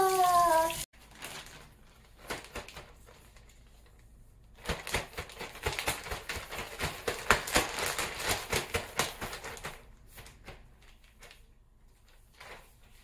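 A clear zip-top plastic bag of chicken wings crinkling and rustling in rapid bursts as it is shaken and handled, busiest in the middle of the stretch and dying down to a few light rustles. In the first second a loud falling tone in several steps cuts off abruptly.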